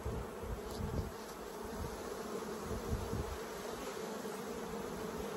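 Honeybees buzzing in a steady hum over an open honey super, the bees stirred up and being driven down off the frames by a bee-repellent fume board. A few faint knocks in the first second or so.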